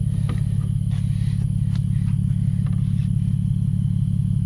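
Steady low rumble of the Lexus GS300's 2JZ-GE inline-six engine idling, with a few light knocks as the old factory subwoofer's metal frame is handled.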